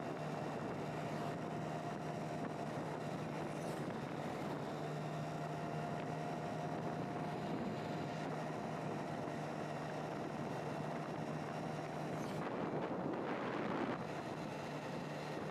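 A vehicle on the move: a steady engine drone with road and wind noise. About thirteen seconds in, a louder rush of noise swells briefly and then drops away.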